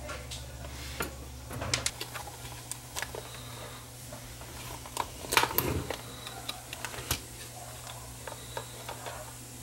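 Scattered light clicks and taps of small electronic parts and tools being handled on a workbench during camcorder repair. A low electrical hum runs underneath and stops about two seconds in.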